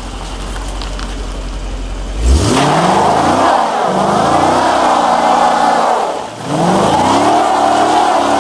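A V8 muscle car's engine idling low, then revving hard about two seconds in. The revs climb and waver, dip briefly past the middle, and climb again.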